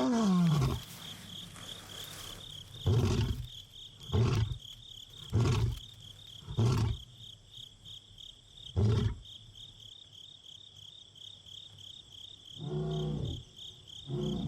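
Young male lion roaring. A long roar falls in pitch and ends about a second in, followed by five short, low grunts a little over a second apart; after a pause, two more grunts come near the end. Crickets chirp steadily behind it.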